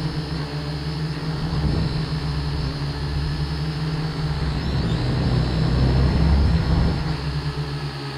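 Multirotor drone's electric motors and propellers whirring steadily, loud and close, as if heard from on its own frame, during take-off and climb. A low rumble underneath swells about halfway through.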